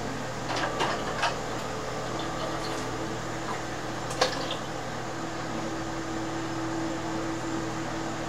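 Light kitchen clatter over a steady room hum: a few soft knocks about a second in, then one sharp clink of a measuring cup against the cooking pot about four seconds in.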